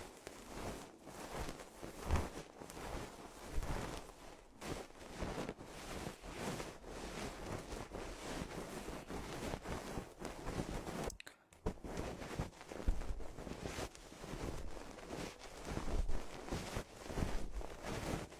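Close-microphone ASMR sounds: a continuous dense crackling and rubbing full of small clicks, with soft low thumps now and then and a brief pause about eleven seconds in.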